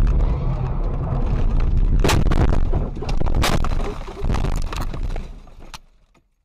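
Car crash heard from the dash camera inside the car: engine and road rumble, then heavy impacts and crunching about two and three and a half seconds in as the car goes off the road. The sound then dies away to silence.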